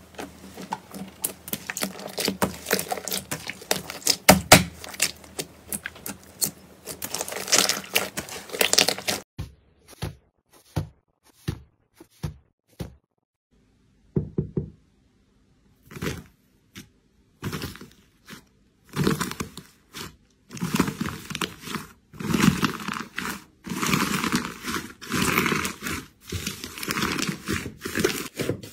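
Hands pressing, poking and kneading slime: dense sticky crackling and popping. It thins to a few scattered pops for several seconds around the middle, then grows dense again.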